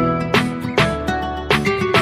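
Background music: an upbeat guitar-led track with regularly strummed or plucked chords, roughly two to three strokes a second.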